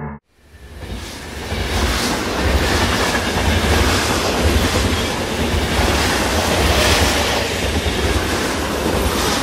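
Loud, steady rumbling noise with a heavy low rumble. It comes in after a sudden cut from a droning tone and builds up over the first second or so.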